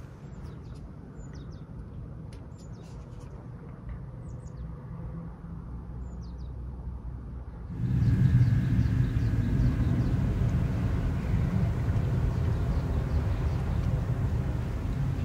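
Small birds chirping over a low rumble, then a little past halfway a steady low drone of a motorboat out on the lake comes in suddenly louder and holds.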